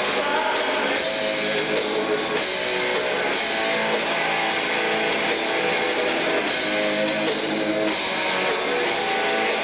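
Live rock band playing loud and steady: electric guitar, bass guitar and drum kit together.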